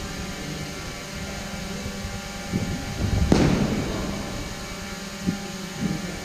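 Fencers' feet thumping on the mat and gym floor, with one loud thud about three seconds in, over a steady low hum.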